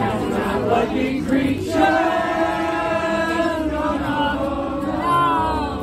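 Live acoustic band playing outdoors: accordion and acoustic guitar with voices singing together, including a long held note about two seconds in.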